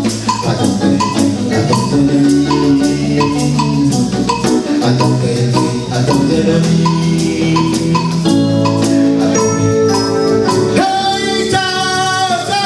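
Music with a steady percussion beat over sustained low instrumental notes, and a voice singing near the end.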